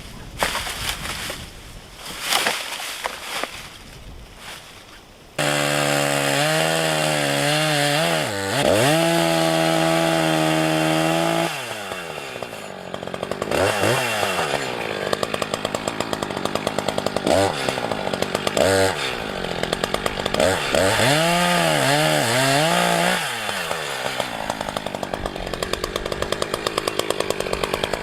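A few soft knocks and rustles, then about five seconds in a gas chainsaw comes in abruptly and runs at high speed. It is revved up and down several times, bogging to a lower, rougher note in stretches as the chain cuts into wood, likely small pines.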